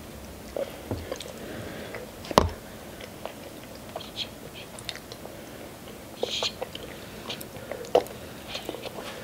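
Close-miked chewing and biting as chicken wings and noodles are eaten: wet mouth smacks and sharp little clicks, the loudest about two seconds in and again near the end.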